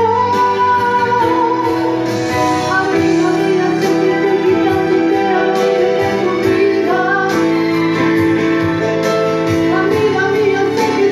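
Woman singing a slow Spanish-language ballad into a handheld microphone over backing music with long held notes.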